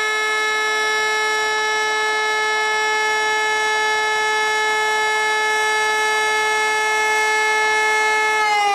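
Civil defence siren sounding the fire-brigade alarm: one loud steady tone, held at a constant pitch, that begins to wind down and fall in pitch near the end.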